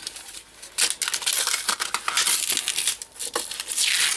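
Plastic blister pack on a cardboard backing card being opened by hand, crinkling and tearing in irregular bursts with short clicks. Near the end a metal ball chain clinks as it is pulled out of the pack.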